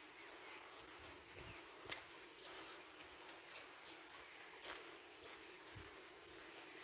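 Insects, most likely crickets, chirping steadily in a faint, high-pitched chorus, with a few short clicks about two, five and six seconds in.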